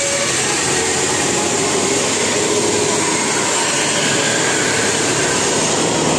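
Steady engine and road noise of a passing bus, a loud even hum without a horn.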